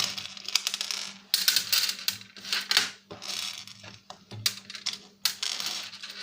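Clinking, clattering and scraping of loose metal parts and screws being handled against sheet steel while a DVD player is taken apart, in several short bursts.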